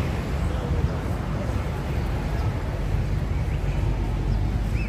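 Outdoor street ambience dominated by a steady low rumble, with a few faint bird chirps near the end.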